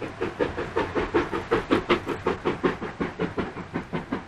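A Stanier 'Black Five' two-cylinder 4-6-0 steam locomotive working hard, with an even, sharp exhaust beat of about five beats a second that grows louder over the first two seconds. It is starting a train up a 1 in 50 gradient, hard work for the engine.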